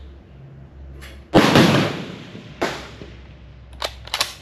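A WW2 Mauser bolt-action rifle fires a single loud shot about a second and a half in, with a long ringing tail. A weaker bang follows about a second later, and near the end come sharp metallic clicks as the bolt is worked.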